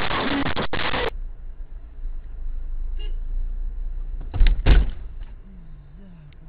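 A loud rushing noise cuts off about a second in, leaving the low rumble of a car running heard from inside. About four and a half seconds in come two heavy thumps close together, a car-to-car collision at low speed.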